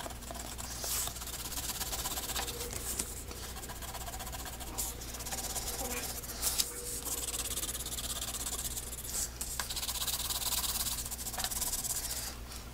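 A black colored pencil scribbling back and forth on a paper plate to shade in an area: a steady, scratchy rubbing. A low steady hum sits underneath.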